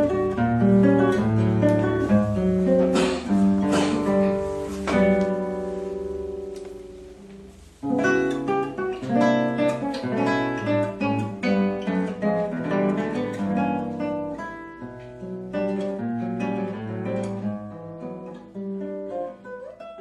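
Solo acoustic guitar playing, plucked notes mixed with strummed chords. A chord rings out and fades about five seconds in, and the playing picks up again about eight seconds in.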